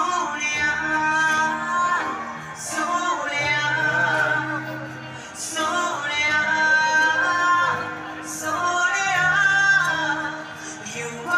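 Female singer performing live with an amplified band, heard from far back in the crowd at an outdoor concert. Long held and gliding sung notes over steady bass.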